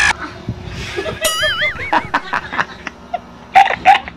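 A young girl giggling, with a short high wavering squeal about a second in and two louder laughs near the end, among a few soft knocks.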